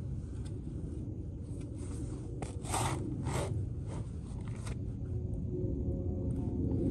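Steel shovel blade digging into grassy soil, with two scraping strokes in the middle and a few lighter scuffs. A steady low rumble lies underneath.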